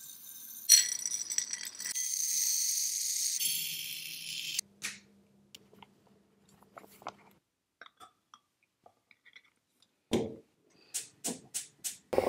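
A hissing, rustling noise for the first few seconds, then scattered soft ticks. About ten seconds in comes a knock as a gas hob knob is turned, followed by a quick run of about five sharp clicks from the hob's igniter.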